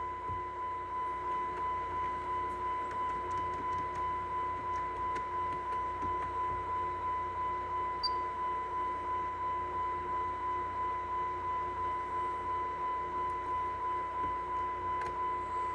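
A steady, high-pitched electronic tone sounding continuously inside a car cabin, its loudness pulsing about twice a second. A few faint clicks, likely dash buttons being pressed, sound over it.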